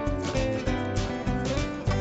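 Background music: upbeat acoustic guitar strumming with a steady beat.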